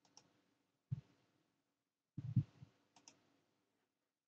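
A few faint computer mouse clicks: one about a second in, then two close together just past the two-second mark.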